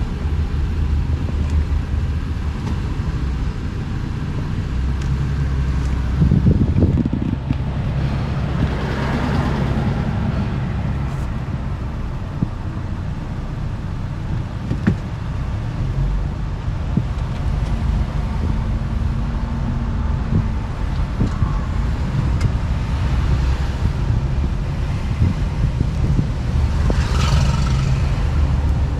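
Steady low rumble of a car driving along a road, engine and tyre noise, with two louder whooshing swells, about nine seconds in and near the end.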